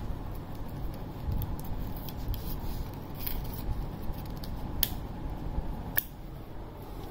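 Rottweiler puppy gnawing on a plastic toothbrush: a low rustle with three sharp clicks in the second half.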